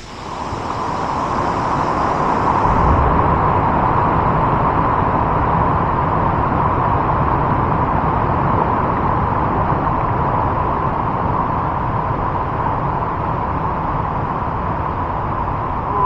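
Steady rushing noise of a large waterfall, white water pouring over a rock ledge close by.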